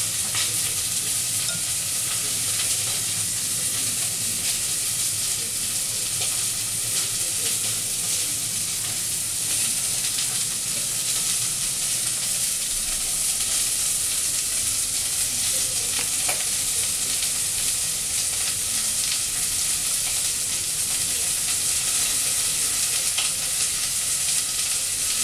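Steady high-pitched hiss of background noise, with a few faint light clicks.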